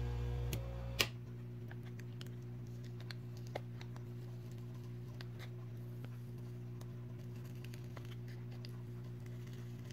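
Faint clicks and scrapes of a plastic spudger prying along a smartphone's frame to free its glued-down battery, with one sharper click about a second in, over a steady electrical hum.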